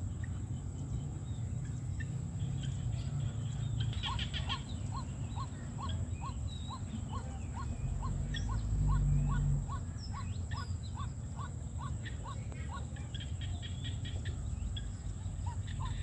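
Small rice-field frogs calling in chorus: a steady run of short rising croaks, about two a second, between bursts of rapid clicking calls. Wind rumbles on the microphone, with a stronger gust about eight seconds in.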